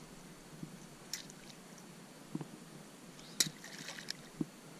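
Quiet water sounds with a few short faint clicks and splashes, the loudest about three and a half seconds in, as a fishing lure is worked slowly back across the water from a kayak.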